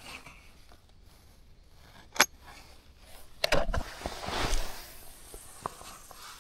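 Fishing tackle being handled: a sharp click about two seconds in, then clicking and rattling of lures in a tackle box, followed by soft rustling and a few light ticks.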